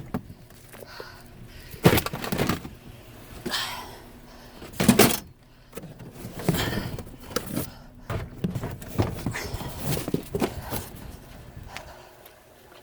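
Irregular knocks, clunks and rustling of objects being handled and set down, with the loudest knocks about two seconds in and about five seconds in.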